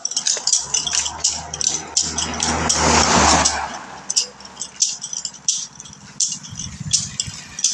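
A steady run of sharp rattling clicks, about two to three a second. A road vehicle passes close by under them, its rumble swelling to a peak about three seconds in and fading away.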